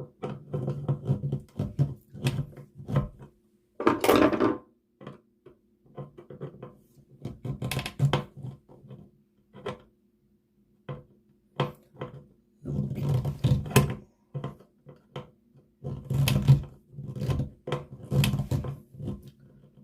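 Irregular clicks, knocks and scraping of hands working a wall toggle switch and its stiff wires into the electrical box, with a louder rustling scrape about four seconds in.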